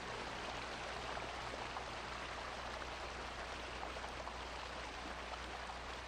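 Stream water running over rocks: a steady, soft hiss dotted with small splashes.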